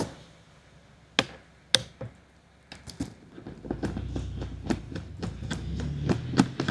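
Computer parts being handled and fitted: a series of sharp clicks and taps, with a low steady hum coming in about halfway through.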